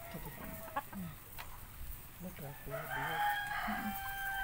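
A flock of white laying hens clucking in short calls, with one bird's louder, drawn-out call coming in about three seconds in.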